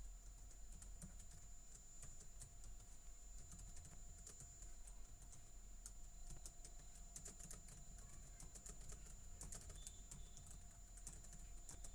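Computer keyboard typing: faint, irregular keystroke clicks.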